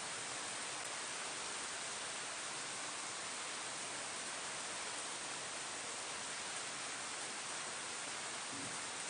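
Steady rain falling on leaves: an even, unbroken hiss.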